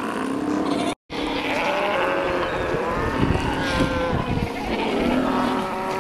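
South American sea lions calling in a colony: overlapping wavering calls, with deeper calls around the middle. The sound drops out completely for a moment about a second in.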